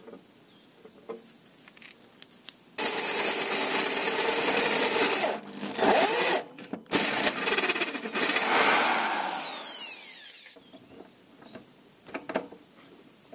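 Electric drill running under load as it bores into the end of a metal tube, starting about three seconds in and cutting out briefly twice. Near the end its whine falls away as the motor spins down.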